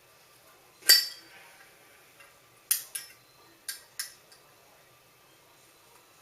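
Chrome Zippo lighter being worked in the hand: one loud, ringing metal clink about a second in, then four shorter clicks over the next few seconds. The freshly filled lighter won't catch, which the owner puts down to a wick that is still dry.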